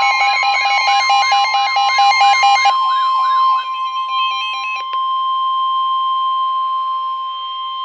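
A steady single-pitch alert tone just above 1 kHz, the NOAA Weather Radio warning alarm tone that comes before a severe thunderstorm warning. Over it for the first three to four seconds is a siren-like wail sweeping up and down about twice a second, with a lower steady tone alongside.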